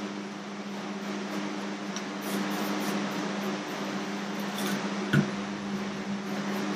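Steady shop hum and hiss, like a running fan, with a single sharp knock about five seconds in.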